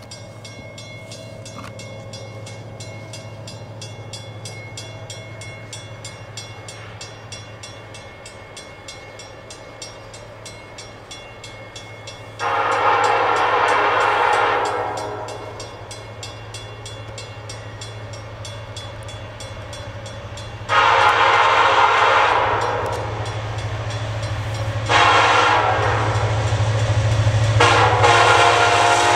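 Diesel locomotive horn on CN SD70M-2 8899, leading a freight train, sounding the grade-crossing signal: two long blasts, a short one, then a final long one that runs on. A low steady engine hum lies beneath and grows louder near the end as the train approaches.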